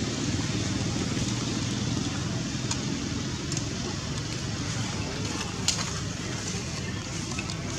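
Steady low engine hum, with a few light clicks, the sharpest a little before six seconds in.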